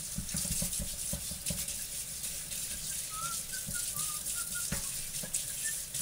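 Kitchen utensils and dishes clinking and knocking as they are handled while being washed at the sink, in irregular short clatters. A few faint, short, high whistle-like notes sound in the second half.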